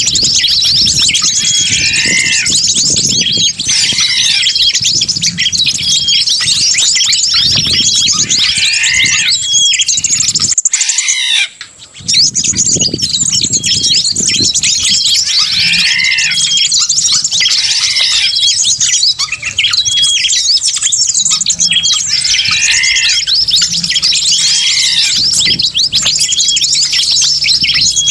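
Dense, layered chorus of many small wild birds chirping and squawking at once: a mixed bird-lure recording meant to draw in wild birds. It is loud and continuous, with the same calls coming round every couple of seconds, and it breaks off briefly about eleven seconds in.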